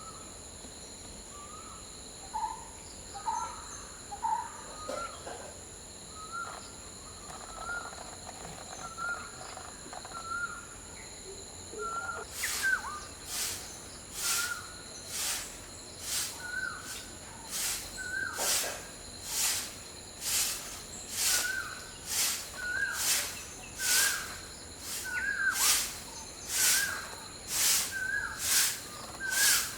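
A bird repeating a short call note at a steady pace, a little more than once a second. It grows louder and sharper, each note starting with a click, from about twelve seconds in. Under it runs a steady high-pitched insect drone, with a few lower bird notes early on.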